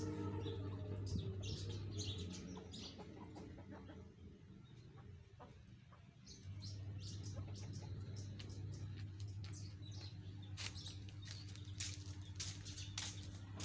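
Chickens clucking and small birds chirping, the calls getting busier in the last few seconds, over a steady low hum.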